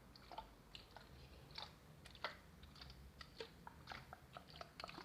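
Faint, irregular small clicks and taps close to the microphone, several a second, some with a brief high ring.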